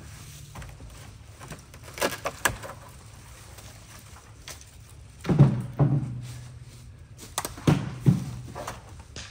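Old weathered wooden boards of a collapsing shed knocking and thudding as they are worked loose by hand: a couple of sharp knocks about two seconds in, then heavier thuds in pairs about five and eight seconds in.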